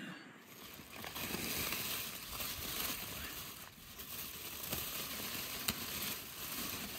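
Aluminium foil cover crinkling and rustling as it is peeled back by hand, with one sharper crackle late on.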